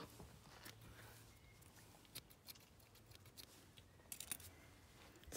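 Near silence with a few faint snips of small grooming scissors trimming the fur on a dog's paw, a small cluster of them about four seconds in.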